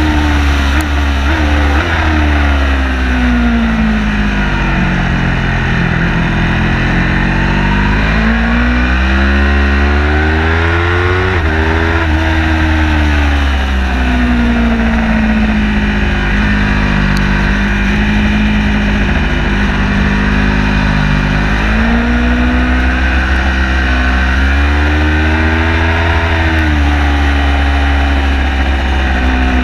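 Car engine driven hard on a race circuit, its pitch climbing under acceleration and falling on lifts and downshifts, holding steady for several seconds in the middle, over constant road and wind noise.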